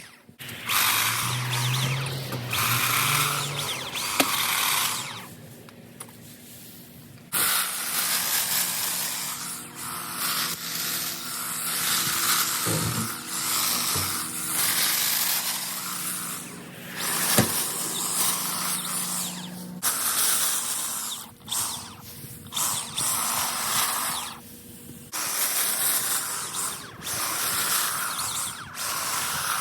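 Stihl KMA 130R power head driving its sharpened extension hedge-trimmer attachment, running in bursts of a few seconds with short pauses between them as the blades cut.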